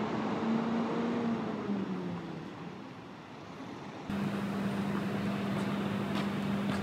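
A train passing: a low drone that rises slightly and then sinks in pitch over a rumble. About four seconds in, it gives way suddenly to a steady, unchanging low engine hum from road traffic.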